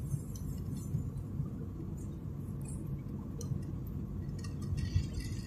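Car cabin rumble while driving, a steady low drone with a few faint light clicks and rattles scattered through it.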